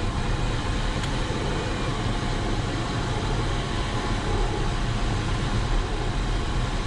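Steady rush of air over the canopy of an ASW 20B sailplane in unpowered gliding flight, heard inside the cockpit: an even low rumble with a hiss over it.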